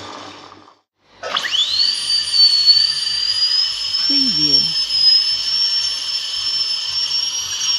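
Dental drill: one run fades out, and after a short silence the drill spins up about a second in with a fast rising whine, then holds a steady high-pitched whine.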